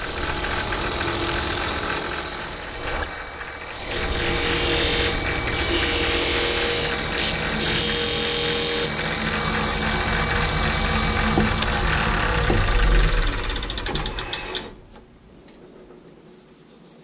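Midi wood lathe running with a small mesquite box spinning in its chuck, first with sandpaper and then with a turning tool held against the wood, giving a steady scraping, whirring noise with a brief high squeal near the middle. The lathe is switched off about three-quarters of the way through.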